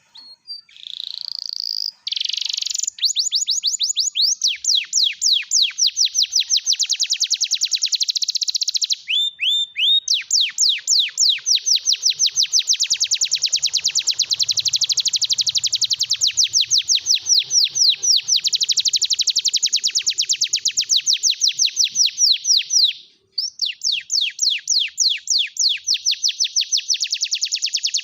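Domestic canary singing loudly in long rapid trills, each a quick run of repeated falling notes, with a short break about a third of the way in and another pause near the end.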